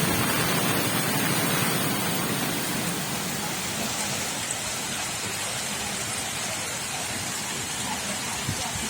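Heavy rain falling: a steady hiss that eases off slightly over the first few seconds.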